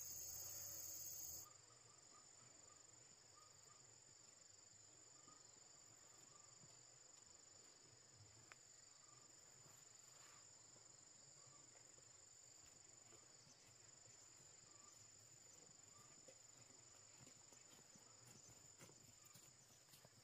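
Faint, steady high-pitched insect chorus droning without a break. A louder rush of noise covers it for about the first second and a half.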